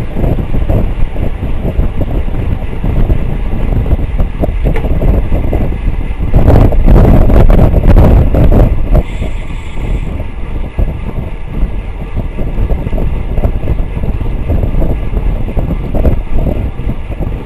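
Wind buffeting a bike-mounted camera's microphone at about 30 mph, with tyre and road rumble: a loud, steady, low rush that swells for a few seconds in the middle.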